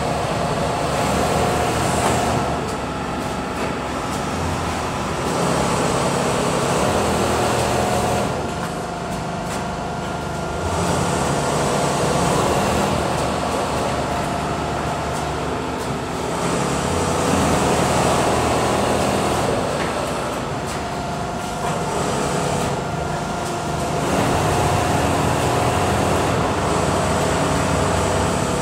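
Richpeace automatic sewing machines running in a steady factory din, the machine noise swelling and easing every few seconds as the stitching cycles go on, with a steady high hum underneath.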